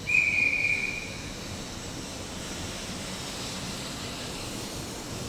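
JR West 700 series 'Rail Star' Shinkansen train moving along the platform, a steady rushing noise of the passing cars. A loud, high-pitched tone sounds for about a second at the start.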